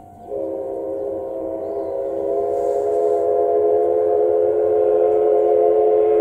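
Steam locomotive C11 207 blowing one long chime whistle, a chord of several steady pitches that grows louder over about six seconds and cuts off at the end. Another steady single tone continues underneath.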